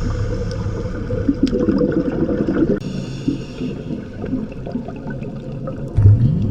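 Underwater sound of a scuba diver's regulator: a burst of bubbling exhaust bubbles over a steady low hum, then a short rising tone near the end.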